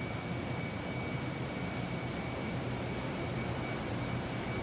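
Steady machinery noise in a ship's engine room: the slow-speed two-stroke main diesel engine running, with the auxiliary pumps. It is a constant rush with a low hum and a few steady high whines above it.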